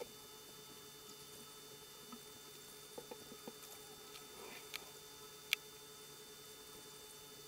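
Faint room tone with a steady electrical hum and a few soft, short clicks: three in quick succession about three seconds in, and the loudest about five and a half seconds in.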